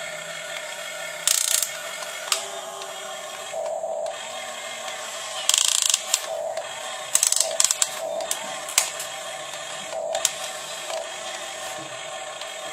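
Electric motors and gearboxes of a 1:15 scale RC excavator whining steadily as it works, with short sharp clatters several times.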